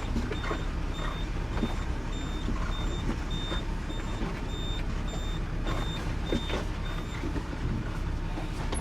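Loaded dump truck's diesel engine running low and steady while it backs down the hill, its reversing alarm beeping at an even rate of about two to three beeps a second.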